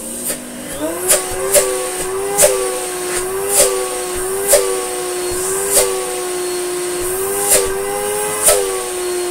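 Electrolux Slimline 185 vacuum cleaner running on its newly fitted replacement motor. The motor's hum rises in pitch as it speeds up at the start, then holds steady, broken by about eight sharp pops at uneven intervals. Right at the end the pitch begins to wind down.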